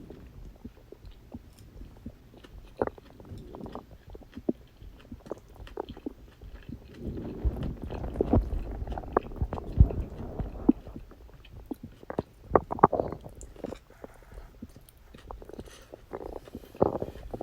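A person's stomach and intestines gurgling and rumbling during digestion, with short pops and gurgles over a low rumble. It grows louder and busier partway through, with a few sharper pops after that and again near the end.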